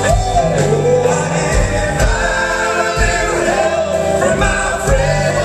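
Several male singers singing together in harmony with a live pop-rock band of electric guitars, bass, keyboard, saxophone and drums, heard through the hall's PA.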